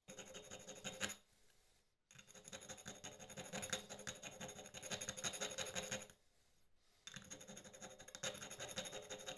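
A thin file scraping back and forth inside the central burner hole of a nickel-plated copper camping stove: a fast, dry scratching in three stretches, broken by quieter pauses about a second in and about six seconds in.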